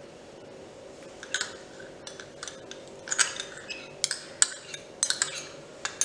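A metal spoon clinking and tapping against small glass bowls while chutney is spooned out: a run of short, light clinks starting about a second in and coming more often in the second half.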